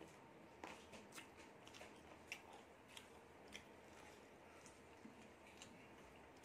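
Faint close chewing: soft wet mouth clicks, scattered roughly once a second.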